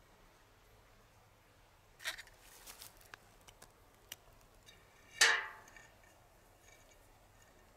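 Aluminium soda can being handled and worked with a pocket knife: a cluster of small clicks and crinkles about two seconds in, a few scattered clicks, then one loud, sharp metallic clink just after five seconds with a brief ring.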